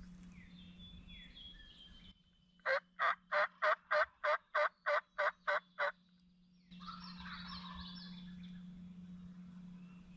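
Turkey calling: a run of eleven evenly spaced, loud yelps, about three a second, lasting some three seconds. Small birds chirp faintly before and after.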